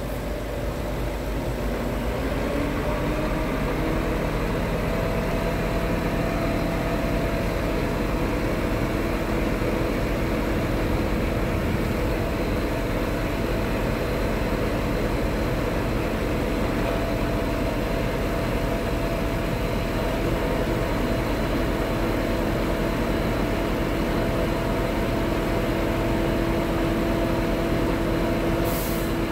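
Scania R truck's diesel engine running steadily while driving the loader crane's hydraulic pump, whose whine rises in pitch over the first few seconds and then holds as the crane boom unfolds and lifts. A short hiss comes near the end.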